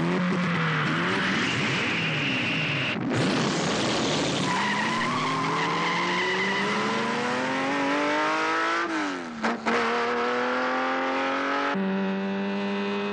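Race car sound effects at a standing start: tyres squealing over the engine for the first few seconds, then the engine revving, its pitch rising steadily for several seconds. After a brief break about nine seconds in, the engine runs on at a steady pitch.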